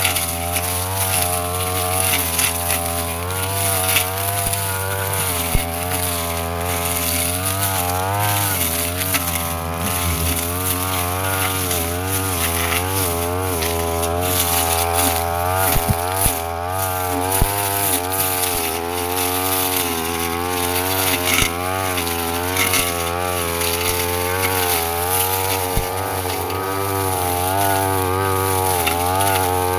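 Brush cutter's small engine running at working speed, its pitch wavering up and down as the blade slashes through grass, with scattered sharp ticks.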